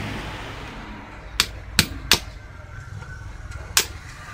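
Four sharp metal clicks, the last about a second and a half after the first three, as a screwdriver is worked against the metal bracket of a heat press handle.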